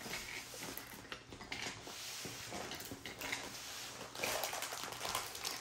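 Faint rustling and crinkling of plastic film and paper as a rolled diamond-painting canvas is unrolled by hand.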